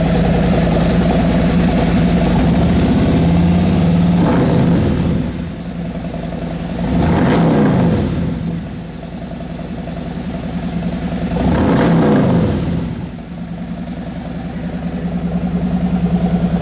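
2017 Harley-Davidson Road Glide's Milwaukee-Eight 107 V-twin, cold, running loud through Wildpig head pipes and DNA 4.5-inch megaphone slip-on mufflers: idling, then blipped up twice with the revs falling back each time, settling into a steady pulsing idle near the end.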